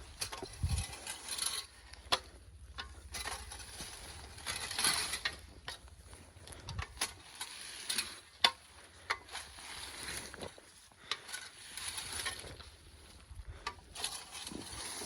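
Dry fallen cedar branches being gathered and handled: irregular rustling of twigs and needles with sharp snaps and cracks, one crack louder than the rest a little past the middle.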